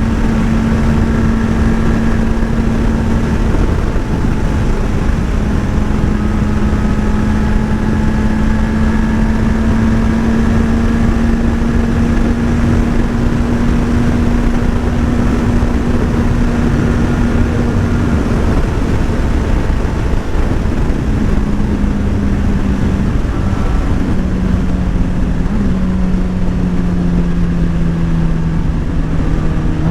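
Motorcycle engine running at a steady speed while riding, with wind rushing over the microphone. About two-thirds of the way through, the engine note drops and then shifts in steps several times, as the revs change.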